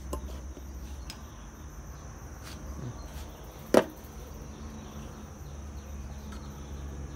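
Motorcycle reed valve blocks being handled: a few light clicks and one sharp click about halfway through, over a steady low hum and a steady high-pitched whine.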